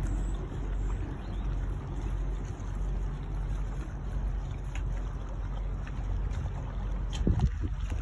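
Sailboat's engine running steadily as the boat motors along with its sails furled: a low, even hum under water and air noise. A brief bump or rustle comes about seven and a half seconds in.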